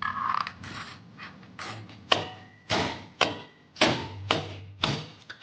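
About nine sharp metallic knocks at irregular intervals, each ringing briefly: hammer blows working the bearings of a scooter's rear final-drive gearbox.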